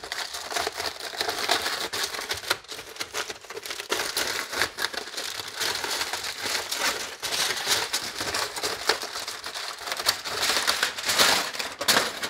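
Aluminum foil crinkling and crackling continuously as it is peeled open and pulled back by hand, loudest near the end.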